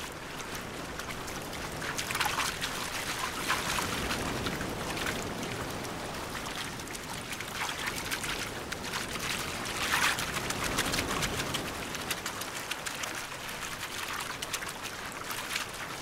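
Many small splashes as a mass of Gulf grunion flap and wriggle in shallow surf. Waves washing in swell louder around two seconds in and again around ten seconds in.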